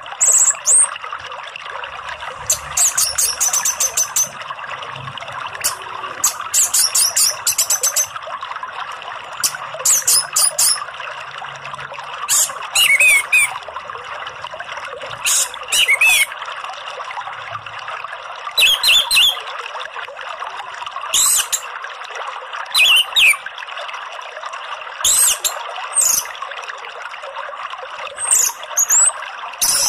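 Orange-headed thrush (anis merah) song in short bursts of rapid, high notes every two to three seconds, some phrases dropping into lower sliding notes, over a steady sound of running water.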